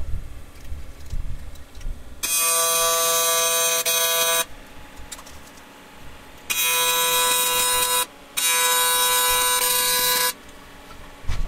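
AC TIG arc from a Miller Dynasty 400 welding aluminum, a steady harsh buzz with a hiss over it. It strikes about two seconds in and runs in three stretches of roughly one and a half to two seconds, each starting and cutting off abruptly, with a short gap between the last two.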